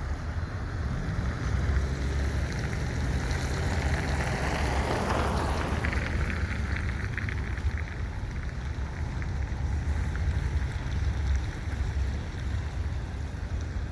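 Slow-moving double-stack freight train passing, a low steady rumble with wind buffeting the microphone.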